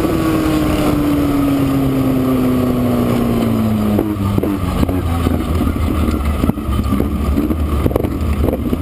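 Midget race car's engine, heard from on board, falling steadily in pitch for about four seconds as the car slows off the throttle. It then drops to a low, uneven rumble at slow speed, with scattered pops and rattles.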